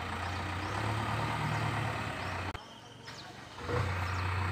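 Heavy diesel engine running steadily with a low hum. The sound nearly cuts out for about a second past the middle, then returns.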